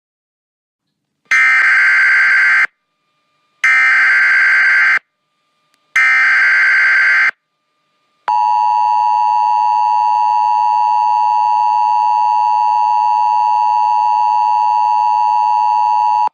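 Emergency Alert System tones: three short bursts of the SAME digital header, each a harsh data screech lasting about a second and a half with a pause between, then, about eight seconds in, the steady two-tone EAS attention signal, held unbroken.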